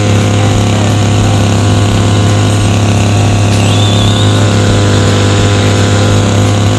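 Petrol brush cutter's small engine running loud and steady at one speed while cutting weeds.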